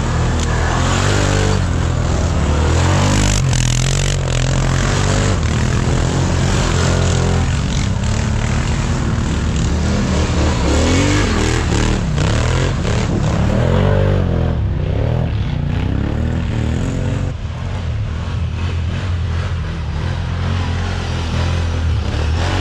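Quad bike (ATV) engines revving hard, their pitch rising and falling again and again as the throttle is worked, with scattered knocks and scrapes from the machines over the rough dirt.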